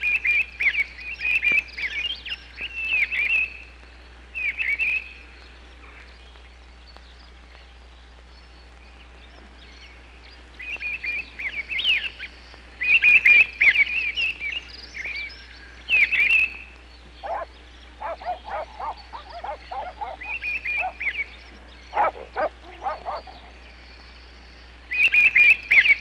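Bursts of rapid, high chirping animal calls, each run lasting a few seconds and separated by pauses. In the later middle stretch a series of lower, shorter chirps comes in.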